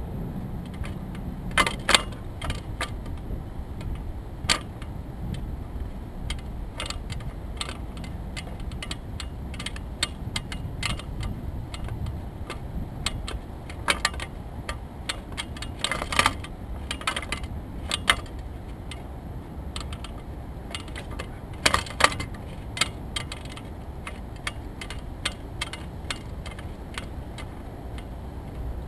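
Wind rumbling steadily on the microphone, with scattered sharp clicks and small metallic rattles coming irregularly, several in quick clusters.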